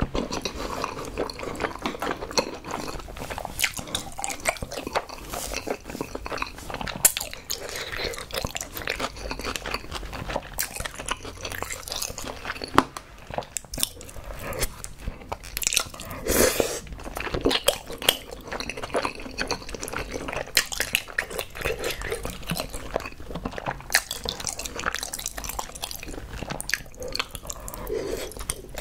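Close-miked eating of spicy tteokbokki and wide Chinese glass noodles in thick sauce: wet chewing and smacking clicks, with a few louder slurps as the noodles are sucked in.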